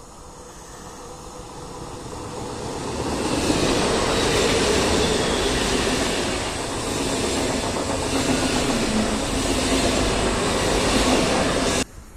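PKP Intercity Pendolino (ED250) high-speed electric train passing at speed. Its rush of wheels and air builds over the first few seconds as it approaches, stays loud and steady while the carriages go by, and cuts off abruptly near the end.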